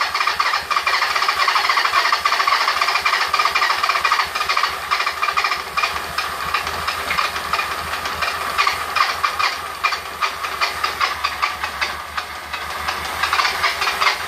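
Electric starter cranking a 1997 Honda CB750's air-cooled inline-four engine, spinning it over in a fast, even churn without it firing. The mechanic takes the free spinning for a sign of low compression.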